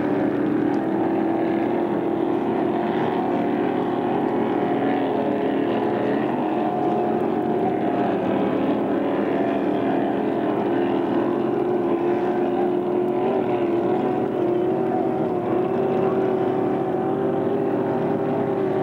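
Racing speedboat engines running hard out on the water: a steady droning buzz that drifts slowly up and down in pitch as the boats run their course.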